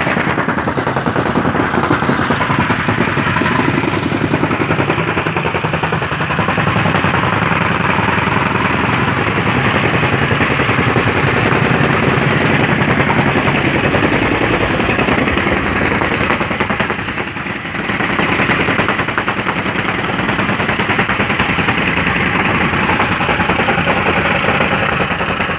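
Jumping-jack rammer compactor pounding gravel: its small engine running hard with rapid, continuous hammering of the foot, easing off briefly about seventeen seconds in.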